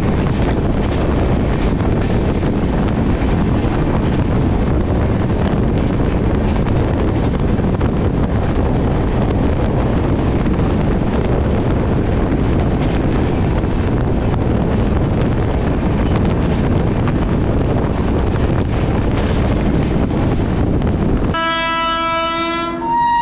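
Steady running noise of a passenger train at speed with wind rushing over the microphone, heard from outside the coach. Near the end it gives way abruptly to a loud locomotive horn, several notes sounding together, which shifts to a different chord about a second later.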